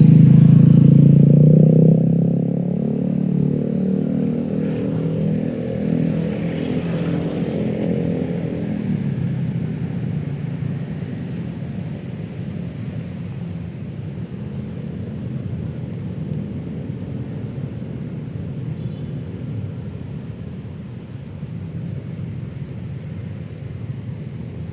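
City street traffic: a motor vehicle's engine is loud and close for the first couple of seconds, then gives way to a steady traffic rumble that slowly grows quieter.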